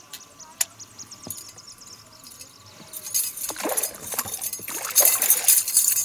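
Hooked tiger trout thrashing at the surface: two bursts of splashing, about three and five seconds in.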